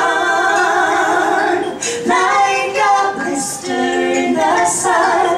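Live singing: a woman's and a man's voices in harmony, holding one long note, then a run of shorter notes from about two seconds in.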